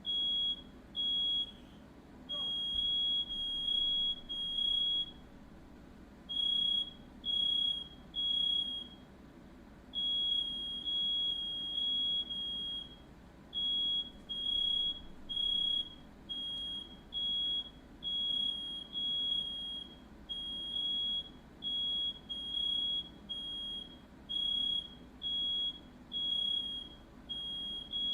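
Smoke alarm going off: a shrill, high-pitched beep repeated over and over in an uneven pattern, set off by smoke from a fire in the house.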